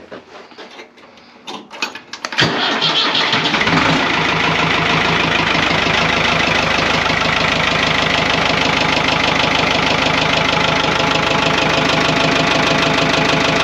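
Ford 6610 tractor's four-cylinder diesel engine starting after a few faint clicks, catching about two and a half seconds in and settling within a second or two into a steady idle.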